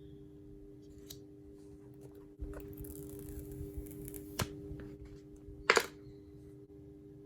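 Hands handling packaging and the phone: a couple of seconds of rustling and scraping with a sharp click, then one louder crisp tap or snap near the end, over a steady low hum.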